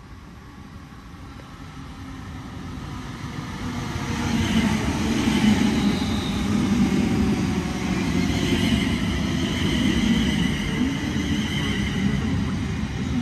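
London Northwestern Railway electric multiple-unit train running along the platform. It grows louder over the first four seconds as it approaches, then holds a steady rumble of wheels on rails with a faint high whine above it.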